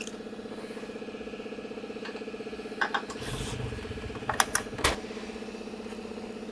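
Sharp metal clicks and a clunk as a motorcycle's locking fuel-tank cap is shut and its key turned: a couple of light clicks about three seconds in, then louder clicks and a clunk between about four and five seconds in, over a steady low hum.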